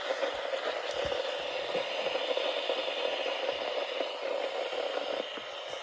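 Steady hiss of radio static from a NOAA weather radio receiver while the station is off the air, which the owner takes for technical difficulties at the broadcaster.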